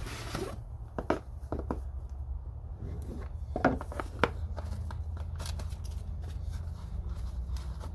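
Hands handling a product and its packaging: scattered clicks, taps and light rustles over a steady low hum.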